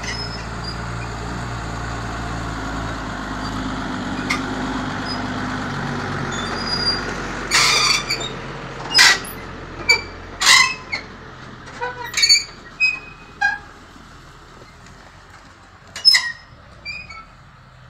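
New Holland tractor's diesel engine running as it pulls a loaded tipping trailer past and away, its sound dropping off after about seven seconds. From then on, about a dozen short, sharp loud noises stand out at irregular intervals.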